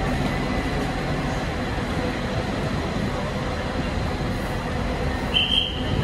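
Steady rumble of idling vehicles and traffic at a covered curbside, with a short, high beep about five and a half seconds in.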